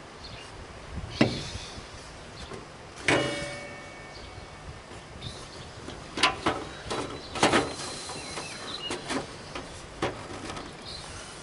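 Scattered knocks and clunks of parts being handled and set down, the one about three seconds in ringing briefly like struck metal, with a cluster of quicker knocks a few seconds later.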